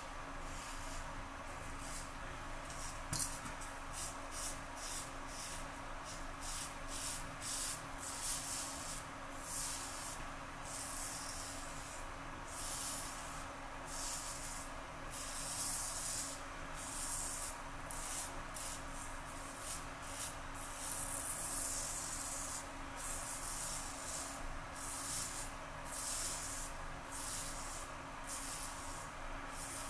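Merkur 34G double-edge safety razor with a Rapira Platinum Lux blade scraping through stubble in many short, irregular raspy strokes, about one or two a second. There is a single sharp tap about three seconds in, over a faint steady hum.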